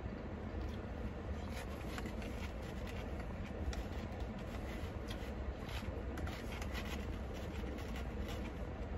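Eating salad with a plastic spoon from a plastic container: scattered faint clicks and scrapes of the spoon and quiet chewing, over a steady low rumble inside the car cabin.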